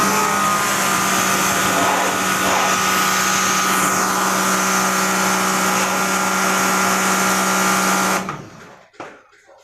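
A small electric motor-driven machine running steadily with a hum and a hiss, then switched off about eight seconds in and winding down.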